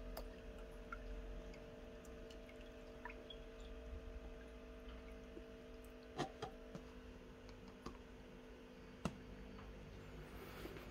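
A faint steady hum with a few light clicks, two of them sharper about six and nine seconds in, and small drips of water.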